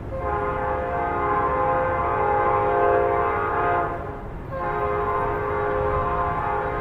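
Nathan Airchime P5 five-chime locomotive horn sounding a long chord for about four seconds, then, after a short break, a second long blast that runs on, over a low rumble.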